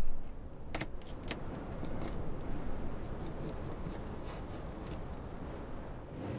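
Knife cutting fish on a plastic crate: a heavy thump at the start, then a few sharp clicks in the first second or so, over a steady low rumble.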